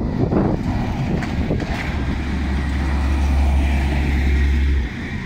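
Heavy lorry passing close by with a deep, steady engine rumble that cuts off abruptly near the end, mixed with wind on the microphone.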